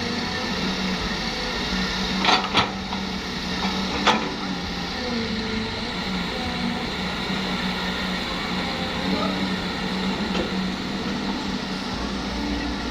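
Heavy-equipment diesel engine running steadily, with three sharp knocks about two and four seconds in.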